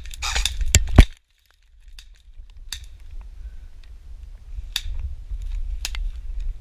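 Airsoft gun shots: sharp snaps, two in quick succession about a second in (the loudest), then three fainter scattered ones, over a low rumble of wind on the microphone.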